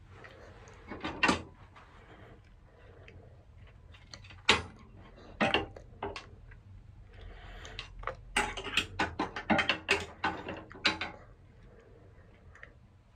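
Wooden clothes hangers with metal hooks clacking and clinking against metal wall hooks as they are handled: a few separate clacks, then a quick run of them for about three seconds in the second half.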